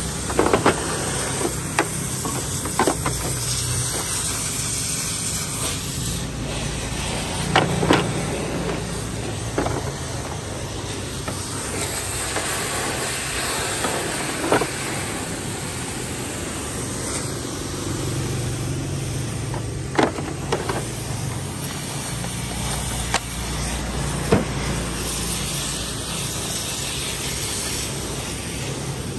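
Scattered hard plastic clicks and knocks as a cordless rotary hammer, its charger and side handle are handled and lifted out of a hard plastic tool case, over a steady background hiss. The loudest knocks come about eight seconds in and again about twenty seconds in.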